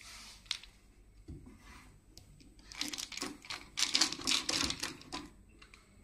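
Screwdriver fitting a screw through a sheet-metal computer case into a hard disk: small metallic clicks and scraping, busiest from about three to five seconds in.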